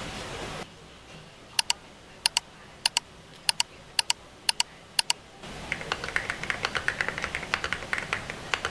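Keys on a keyboard fitted with new keycaps clicking: first a single key pressed and released about every half second, each press a double click, then from about two-thirds of the way in a fast run of typing.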